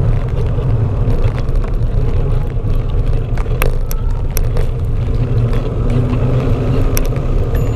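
Steady low rumble of wind and road vibration on a camera mounted rigidly to a moving bicycle, with a few sharp clicks or knocks along the way.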